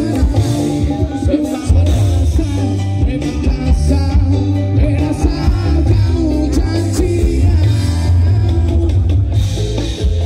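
A live band playing through a big outdoor PA system, heard from within the crowd: a heavy, booming bass and drums under guitar, with a voice singing.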